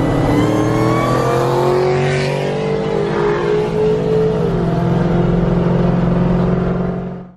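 Straight-piped Cadillac CTS-V V8 exhaust under acceleration, its note climbing steadily in pitch for about four seconds, then dropping, over a steady low drone.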